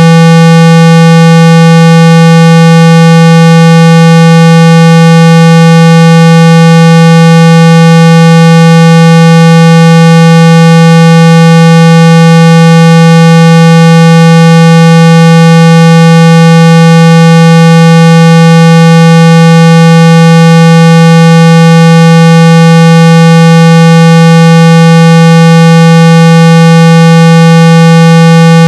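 Steady, very loud 165 Hz low tone with many fainter overtones, held without change: a speaker-cleaning tone meant to vibrate dust and water out of a phone speaker.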